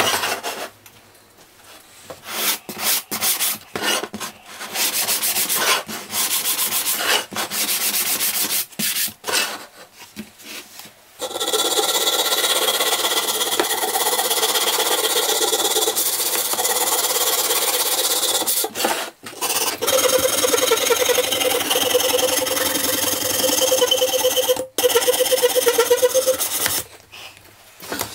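Pine picture frames being hand-sanded with a sanding sponge, a scratchy rubbing. For about the first ten seconds it comes in separate strokes with short pauses. After that it turns into fast, continuous back-and-forth rubbing along the frame edges, broken by a couple of brief pauses.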